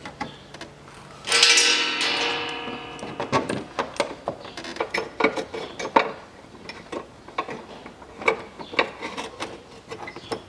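A bolt being started by hand into a threaded metal insert under a car: a metallic ring about a second in that fades over about two seconds, then small irregular metal clicks and scrapes as the bolt is fitted.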